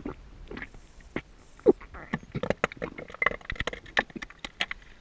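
Irregular sharp clicks and knocks heard underwater through a camera housing during a freedive, coming thicker and faster in the second half.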